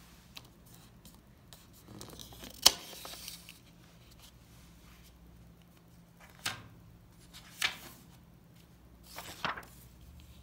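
Paper workbook pages being handled and turned by hand: a sharp paper snap about two and a half seconds in amid a second of rustling, then three more brief paper rustles in the second half.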